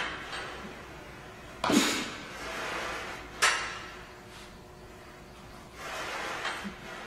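Barbell bench-press reps: breathy exhales under a second long with the presses, and two sharp metallic clanks of the loaded bar and plates, the louder with a thud, about two seconds and three and a half seconds in.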